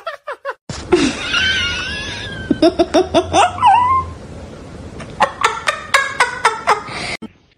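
Person laughing in quick rhythmic bursts, about four a second, in two runs. A high wavering squeal comes before the first run, and the sound cuts off suddenly near the end.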